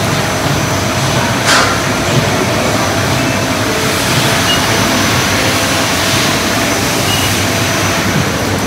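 Steady rushing ambience of a motorway service-station hall, like ventilation or air-handling noise, with a brief clatter about a second and a half in.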